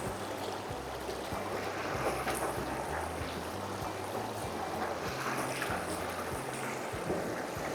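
Steady rushing outdoor noise with a patchy low rumble of wind buffeting the microphone.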